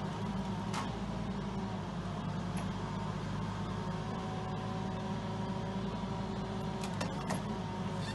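Vimek 610 SE forwarder's diesel engine running steadily while its hydraulic crane works, with a few sharp knocks, two of them close together about seven seconds in.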